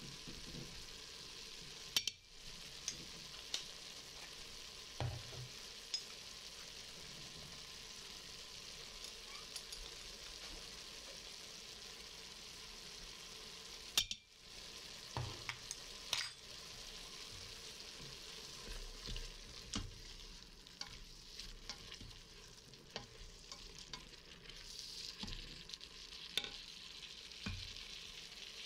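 Onions and strips of meat sizzling in an Instant Pot's stainless steel inner pot, a steady frying hiss. In the second half a spoon stirs the food, with scattered scrapes and small knocks against the pot.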